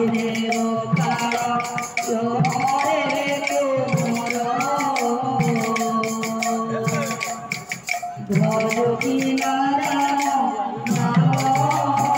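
Kirtan devotional music: a woman singing into a microphone over a drum and jingling percussion in a steady rhythm, with a short break about eight seconds in.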